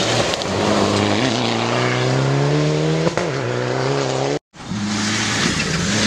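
A Mitsubishi Lancer Evolution's turbocharged four-cylinder rally engine accelerating on gravel, its pitch climbing steadily, with a brief dip about three seconds in like a gearshift, over a constant hiss. The sound cuts out for an instant about four and a half seconds in, and then a second rally car's engine runs on: a Subaru Impreza's turbo flat-four.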